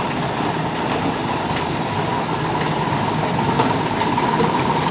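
Small motor running steadily, a continuous whir with a high whine that grows slightly stronger near the end.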